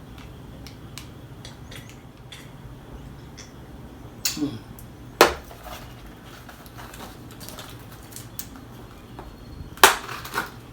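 Small items and their packaging being handled: scattered light clicks and taps, with three sharper, louder knocks about four, five and ten seconds in.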